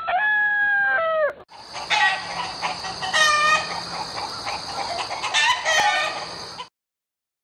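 Farmyard sound effect: a rooster crowing, its long held note ending about a second and a half in, then hens clucking in a busy flock until the sound cuts off suddenly near the end.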